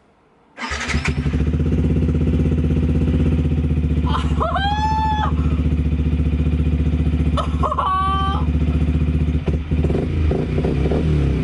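Yamaha YZF-R125's single-cylinder four-stroke engine starting up through a Scorpion aftermarket exhaust, catching about a second in and settling into a steady idle. A person's voice calls out twice over it.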